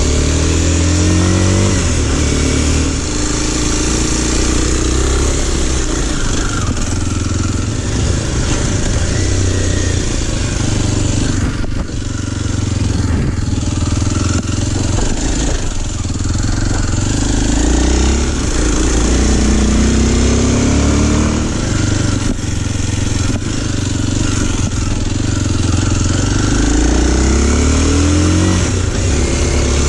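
Kawasaki KLX230's 233cc air-cooled single-cylinder engine running while the bike is ridden. Its pitch climbs through the gears and drops back at each shift.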